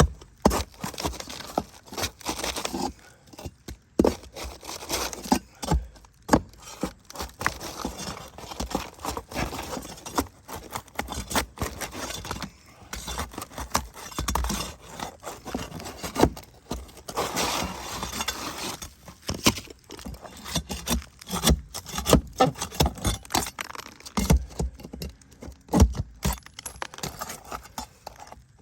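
Hand work on asphalt roof shingles: irregular scraping and rasping, broken by many sharp knocks and clicks.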